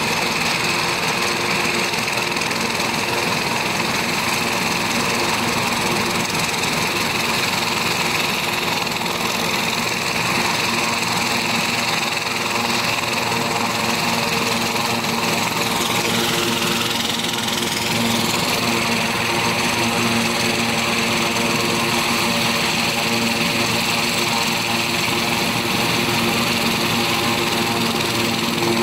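Air ambulance helicopter running on the helipad with its rotors turning, a steady turbine whine and rotor noise. About sixteen seconds in, the high whine briefly dips in pitch and then climbs back.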